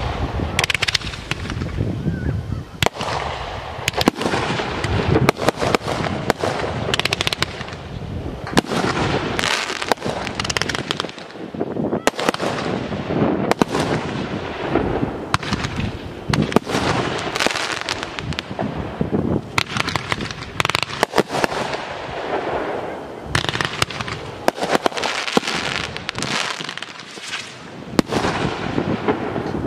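Fireworks display: an unbroken run of sharp shell bursts and bangs, often several close together, with crackling in between.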